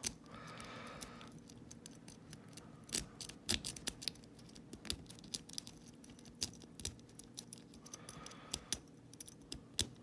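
A lock pick raking the pin tumblers of a New-Set 90mm brass block padlock under a tension wrench: a run of irregular small metallic clicks and scrapes, with a few louder clicks about three to four seconds in.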